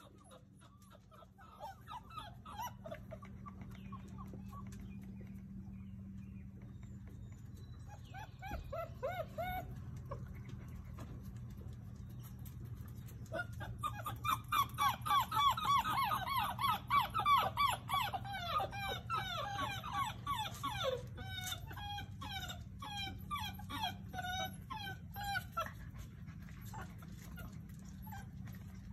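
Basset hound puppies whining and yipping in rapid strings of short, high, falling calls, building to a dense, loud run about halfway through and then thinning out.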